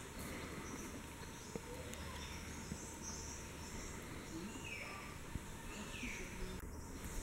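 Rainforest ambience: a steady background hiss with faint bird calls, including two short falling calls a little before the end.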